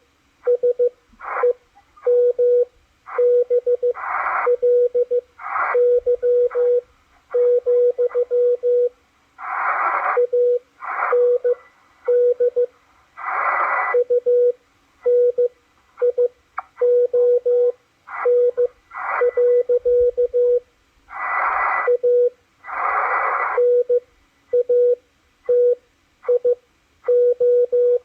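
Morse code signal from W1AW received on a Machilite DSP SDR receiver: a steady beep keyed on and off in dots and dashes. Bursts of static hiss fill many of the gaps between the marks.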